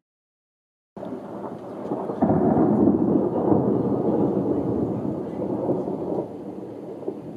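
Thunder rumbling. It begins about a second in, swells sharply a second later and rolls on for several seconds before easing off.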